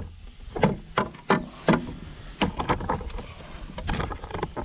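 A bass flopping on a plastic fish measuring board in a kayak while being held down: irregular knocks and thumps, several in quick succession.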